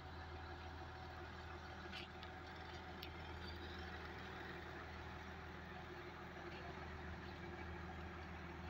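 Heavy truck engine running steadily, a low even drone, with two faint clicks about two and three seconds in.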